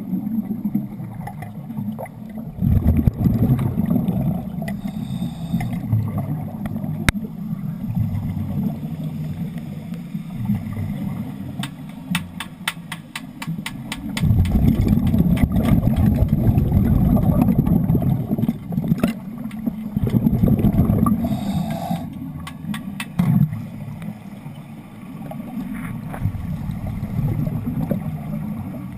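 Bubbling and gurgling underwater during wet welding, coming in surges a few seconds long with faint ticks between.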